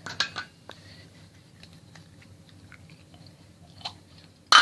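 Slime being squeezed and handled, making faint sticky clicks and crackles, with a loud short noise near the end.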